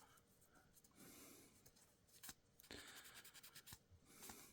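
Faint rubbing and scratching of paper template residue being cleaned off small plywood puzzle pieces, with a few light clicks as the pieces are handled.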